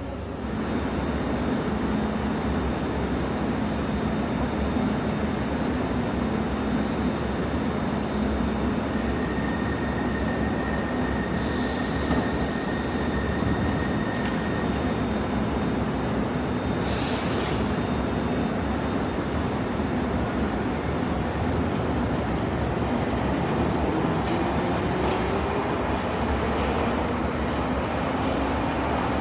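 London Underground train running at the platform: a steady loud rumble with a low hum, a brief high wheel squeal in the middle, and a whine that rises in pitch over the last few seconds.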